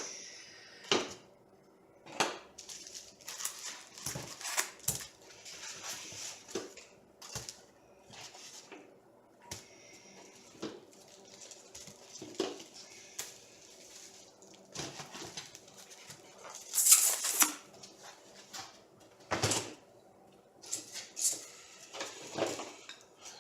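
Unpacking a boxed 3D printer kit: irregular clicks, knocks and rustling of packaging as parts are handled, with a louder rustle about two-thirds of the way through.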